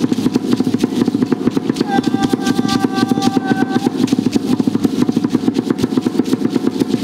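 Fast, steady drumming on a Mayan drum, an unbroken quick run of beats. About two seconds in, a steady high note with overtones sounds over the drumming for about two seconds.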